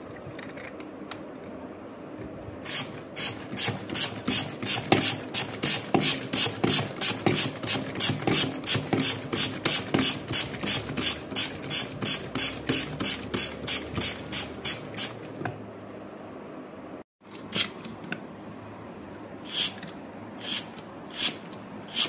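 Mushroom-shaped plastic hand air pump of a balloon car toy being pumped quickly to inflate a balloon, about three strokes a second, each stroke a short hiss of air. After a short gap, a few slower strokes near the end.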